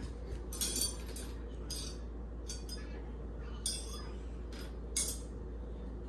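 Metal silverware clinking against other pieces and the dishwasher's cutlery basket as a toddler pulls utensils out one by one: about six short, light clinks at uneven intervals.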